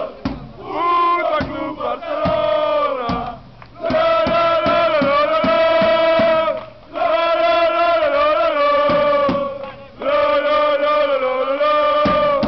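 A group of male football supporters singing a chant together in long held phrases, with three short breaks between phrases. A bass drum is beaten along with the singing.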